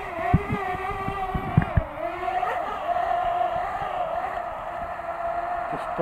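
Parrot Bebop quadcopter's four propellers humming steadily as it comes down to land, the pitch dipping and recovering about two seconds in. Several low thumps sound under the hum.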